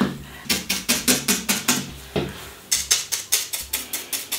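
Felting needle stabbed rapidly and repeatedly through wool into a polystyrene ball, giving quick sharp clicks about six a second. They come in two runs with a short pause about two seconds in.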